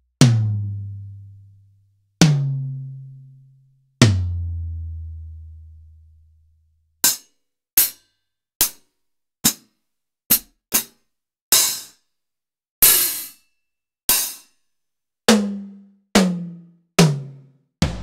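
Drum one-shot samples played one at a time with short gaps between them. First come three low, pitched drum hits, each ringing for about two seconds. After a pause follows a quicker run of about a dozen short, sharp hits, the last three leaving a pitched ring that steps lower with each hit.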